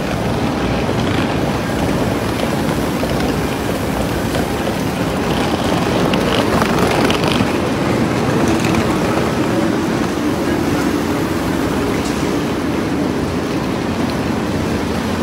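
Rolling suitcase wheels rumbling steadily over pavement, mixed with wind buffeting the microphone.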